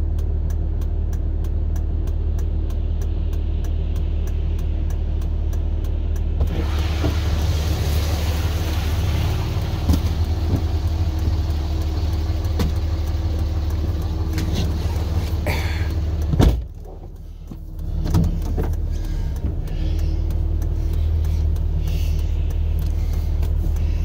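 Vehicle engine idling steadily, heard from inside the cabin, a low even hum. About six seconds in a rushing hiss joins it. Past the middle comes a sharp knock, the sound drops away for a second or so, then the hum returns.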